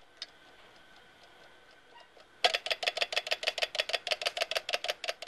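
Mechanical alarm clock for the semi-deaf ringing its single dome bell: the hammer strikes rapidly, about ten strokes a second, starting about two and a half seconds in and lasting about three seconds.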